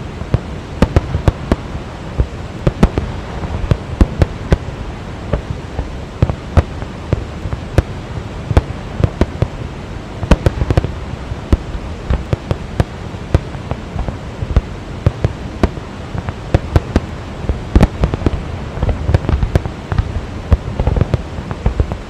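Fireworks display: an irregular, unbroken string of sharp bangs and cracks, often several a second, over a steady rushing noise of the Rhine Falls.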